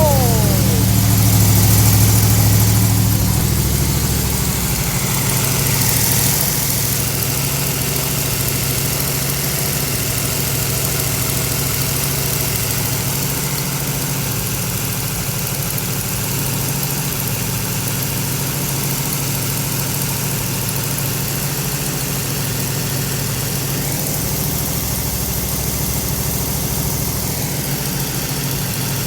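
1972 Chevrolet Camaro Z28's 350 V8 idling, a little louder over the first few seconds and then settling into a steady idle.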